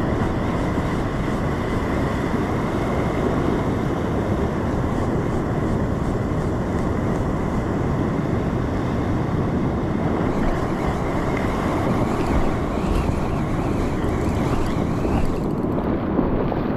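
Rough sea surf breaking and washing over a rocky reef shelf, mixed with wind buffeting the microphone: a steady rush of noise.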